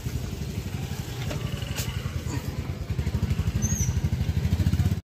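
A motor vehicle engine running with an even, rapid low pulsing that grows louder, then cuts off abruptly near the end.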